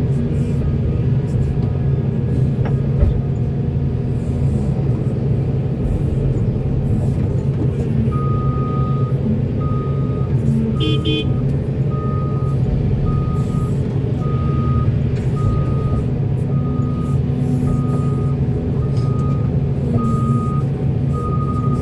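Heavy diesel construction machinery running steadily with a deep drone. About a third of the way in, a reversing alarm starts beeping about once a second, with a brief higher sound among the beeps partway through.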